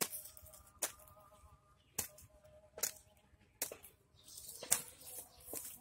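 Metal hoe blade chopping into damp earth, six strikes at roughly one a second, each a short thud with a scrape of soil.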